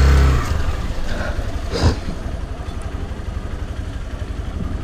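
Hero motorcycle engine running slowly with a steady low pulse. It opens under a loud, steady low drone that stops about half a second in, and there is one brief knock a little under two seconds in.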